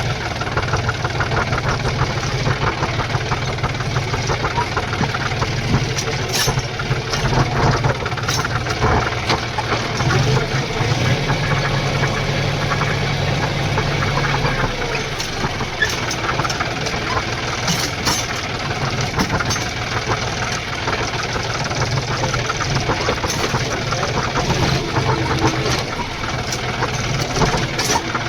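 Tractor's diesel engine running steadily, with occasional short sharp clicks or knocks.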